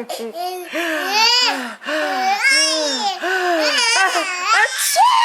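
Baby laughing and squealing in a continuous run of high-pitched cries, each rising and falling in pitch.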